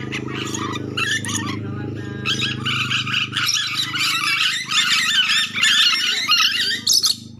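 Ornate lorikeets (nuri dora) screeching in rapid, harsh, chattering squawks that grow dense and loud from about two seconds in. A low steady hum sits under the first half.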